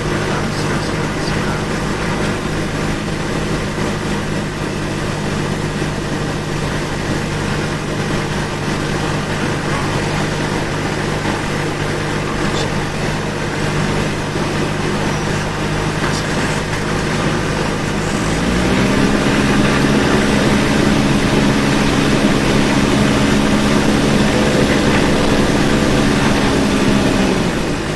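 Cessna 172's piston engine running steadily at low taxi power; about two-thirds of the way through the revs rise to a higher, steady pitch, then drop back near the end.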